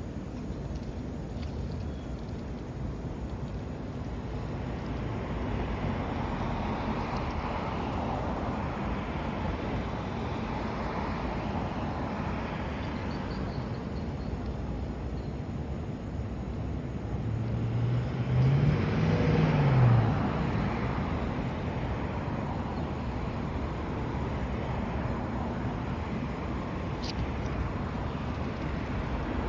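Steady outdoor background rumble, with a motor's tone that rises and falls in pitch once about two-thirds of the way through, the loudest moment.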